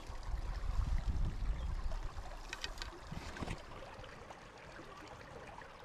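Shallow creek water running and trickling over rocks, with a low rumble in the first couple of seconds. A few brief splashes come about halfway through as a hand lowers a brook trout into the water to release it.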